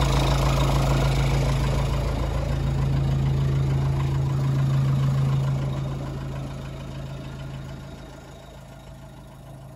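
2.8-litre CRD four-cylinder common-rail turbodiesel idling steadily at about 1,000 rpm, still warming up after a cold start. The engine sound grows fainter from about six seconds in.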